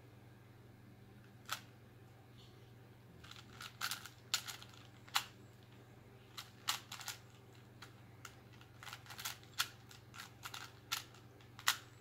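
Plastic 3x3 Rubik's Cube being twisted by hand: irregular clicks and clacks as the layers turn, a single one early, then quick runs of turns from about three seconds in. A faint steady hum sits underneath.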